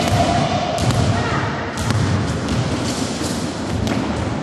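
Basketball bouncing on a hardwood gym floor: a few separate thuds, roughly a second apart.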